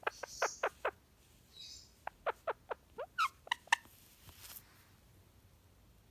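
Indian ringneck parakeet making quick, short squeaky chirps in two runs: a rapid string at the start and another from about two seconds in.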